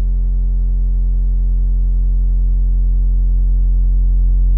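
SOMA Lyra-8 synthesizer holding a low, steady drone with a stack of overtones while its voice-to-voice modulation is slowly turned up. The drone grows slightly louder.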